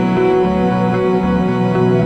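Background music: calm instrumental with sustained keyboard-like notes over a pulsing bass.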